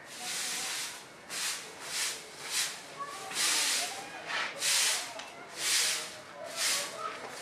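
Short grass hand broom sweeping a cement floor: a run of about eight swishing strokes, roughly one a second.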